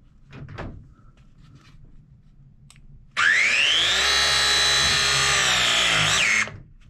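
Milwaukee M18 battery-powered press tool pressing a fitting onto a pipe. After a few seconds of light handling, the motor starts about three seconds in with a rising whine. It runs steadily for about three seconds, then cuts off as the press cycle ends.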